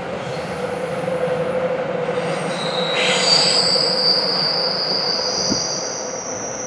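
Wheels of a freight train of loaded double-deck car-transporter wagons rolling through a tight curve. A steady rumble comes from the wagons on the rails. From about two and a half seconds in, high, shifting squeals from the wheel flanges rubbing against the curved rail rise over the rumble and become the loudest sound.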